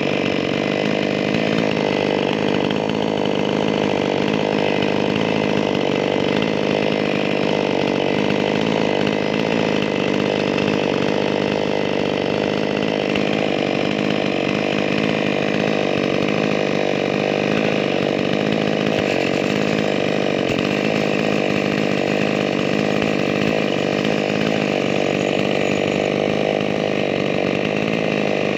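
Petrol chainsaw engine running steadily at a constant speed, loud and unbroken.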